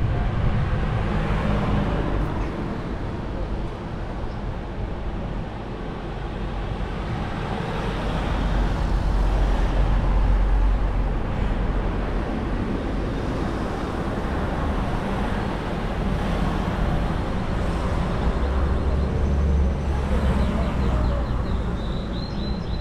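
Street traffic: motor vehicles running and passing, with the low rumble swelling around eight to eleven seconds in and again near twenty seconds. A brief high-pitched tone sounds near the end.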